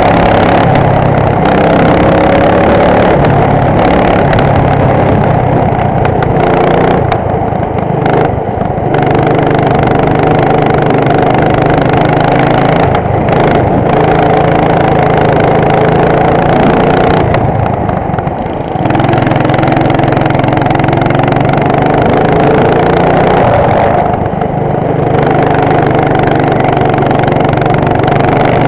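13 hp go-kart engine running hard under throttle, its pitch climbing and falling with the revs. It drops off briefly three times as the throttle eases, then picks up again.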